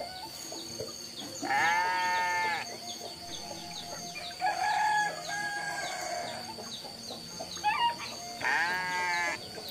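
Roosters crowing: two long crows of about a second each, one near the start and one near the end, with a shorter, weaker call between them. A steady high-pitched tone and faint chirps run underneath.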